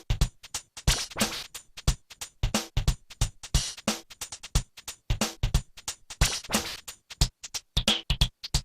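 A Samsung SGH-X120 mobile phone ringtone playing: an electronic drum-machine beat made of quick, short hits, several a second.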